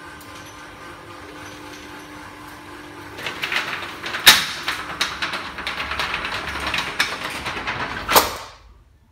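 Electric roller shutter running: a steady motor hum, then from about three seconds in a loud rattling clatter of the metal slats with sharp knocks, the heaviest about a second later. It cuts off suddenly near the end as the motor stops.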